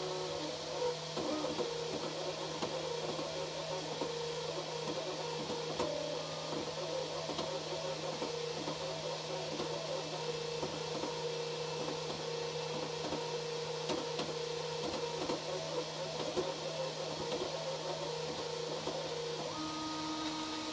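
Emblaser blue diode laser engraver at work on a marking pass: its stepper motors whine in shifting tones as the gantry drives the laser head along the engraving path, over a steady low hum. Near the end the motor tones change as the pass finishes and the head moves off.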